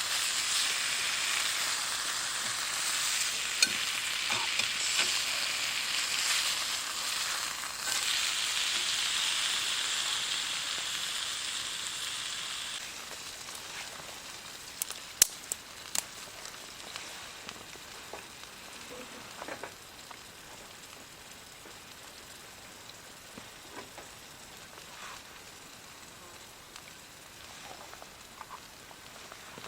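Food frying with a loud, steady sizzle that dies down about halfway through, leaving a faint hiss. A few sharp clicks and light knocks come a little past the middle.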